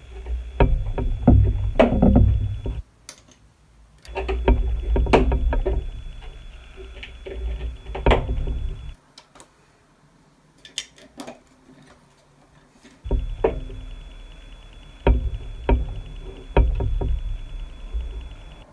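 Plastic LEGO bricks being handled and pressed together on a tabletop: irregular clicks, snaps and knocks over a low rumble of handling, with a pause of a few seconds in the middle.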